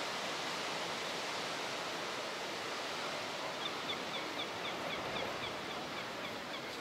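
Steady rushing noise of wind and surf. From about three and a half seconds in, a run of faint high chirps repeats about three times a second.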